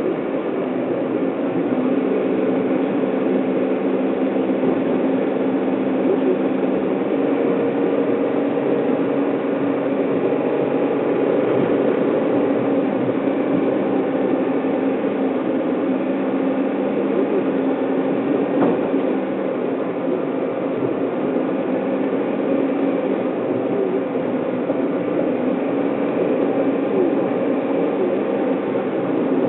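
Steady cabin noise of a car driving along a town road: engine and tyre drone with a low hum, heard from inside the car. There is one small knock about two-thirds of the way through.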